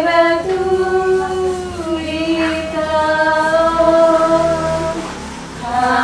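Singing of a slow melody in long held notes, with a short break near the end before the voice comes back in.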